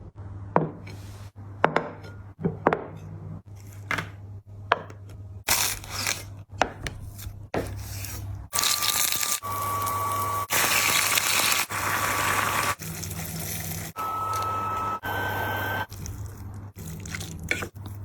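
Kitchen preparation sounds in quick cuts: a string of sharp clicks and knocks, then water running steadily for several seconds, over a constant low hum.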